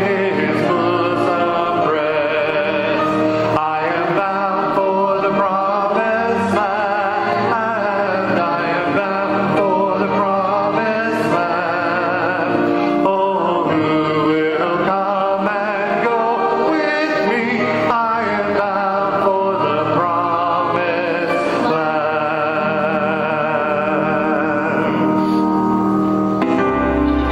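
A hymn sung by women's and men's voices, led by two women singing into microphones, with continuous, wavering sung notes.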